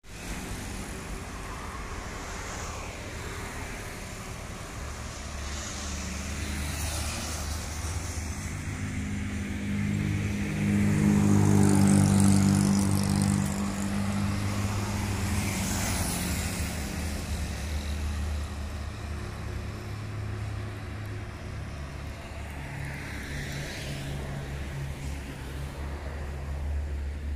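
Road traffic: a steady low engine hum, with a motor vehicle passing close and running loudest about eleven to thirteen seconds in before fading away.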